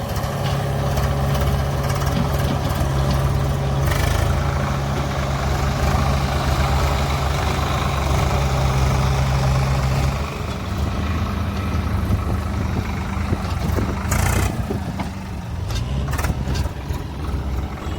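Heavy diesel engine running steadily, its note changing and wavering about ten seconds in, with a short sharp noise about four seconds in and another about fourteen seconds in.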